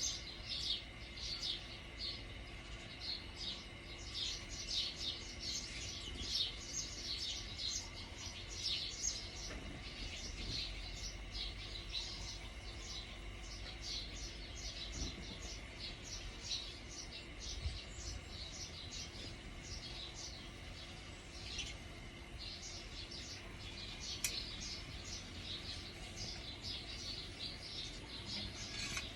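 Small birds chirping: many short, high chirps, several a second, thinning out about halfway through. Under them runs a faint steady low rumble.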